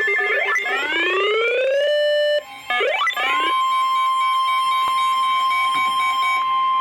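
Electronic alert tones on NOAA Weather Radio: rising sweeps for about two seconds, a short break, another quick sweep, then a steady alarm tone near 1 kHz. The steady tone is the 1050 Hz warning alarm tone that announces a new warning.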